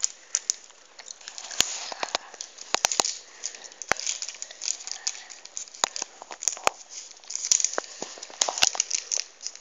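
Crinkling and rustling of a baking-paper origami crane being handled and shaped in the hands, with many sharp crackles, busiest about two seconds in and again near the end.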